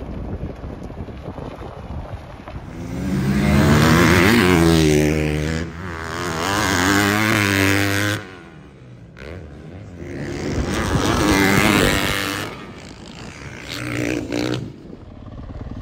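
Motocross dirt bike engine revving hard and easing off in three loud spells, the pitch climbing and falling with the throttle and gear changes, quieter between them.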